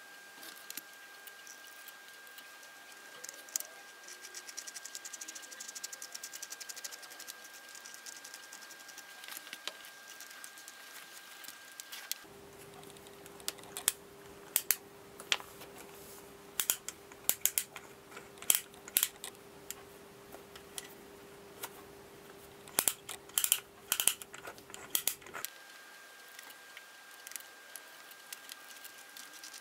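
Small steel parts of a Stanley hand brace chuck clicking and tapping as the jaws and knurled shell are handled and fitted together, the clicks sharper and more frequent through the middle, over a faint steady hum.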